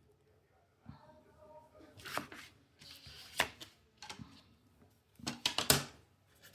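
Clicks, taps and short scrapes of watercolor painting tools being handled, with the loudest cluster of taps about five to six seconds in.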